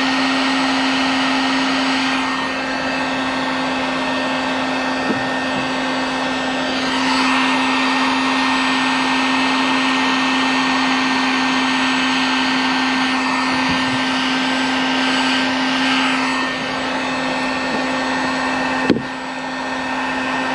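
Handheld electric heat gun running steadily, its fan blowing hot air with a constant motor hum while it melts plastic for a weld patch on a kayak hull. The rush of air changes tone a few times as the gun is moved, and there is one sharp click near the end.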